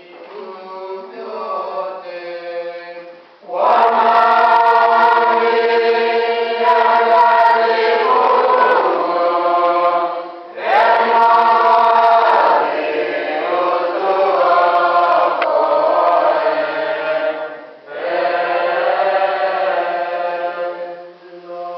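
Small choir singing an Orthodox liturgical chant together in long held phrases, with brief breaks between them. It starts softly and grows much louder about three and a half seconds in.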